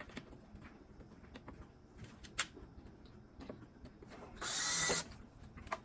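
A few light clicks of plastic parts being handled, then a cordless drill-driver runs in one short burst of about half a second, a little past four seconds in, fastening the dishwasher's cover.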